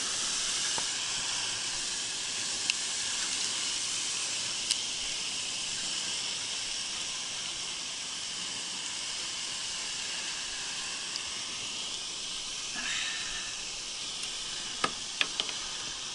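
A steady hiss throughout. Near the end come three sharp knocks close together as a hooked largemouth bass is swung up onto the wooden dock boards.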